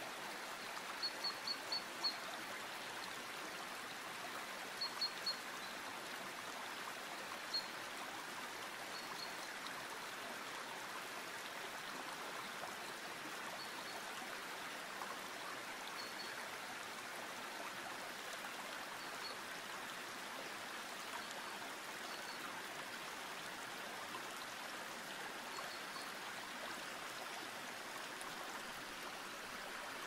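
Mountain river rushing steadily over rocks. Short high bird chirps sound over it: a quick run of about five a second in, three more around five seconds, then single fainter ones every few seconds.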